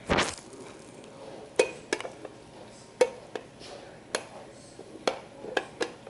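Small screwdriver clicking against the parts of a recessed LED light fixture while prying its plastic piece loose: a string of sharp clicks at irregular intervals.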